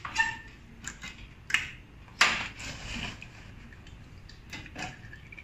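Several short, sharp clicks and clinks of small metal parts being handled on a motorcycle engine's side cover, the loudest a little past two seconds in; the first one rings briefly.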